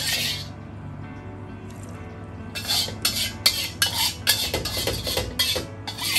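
Metal spatula scraping and stirring curry paste around a wok: one scrape at the start, then a quick run of about ten scrapes from about two and a half seconds in.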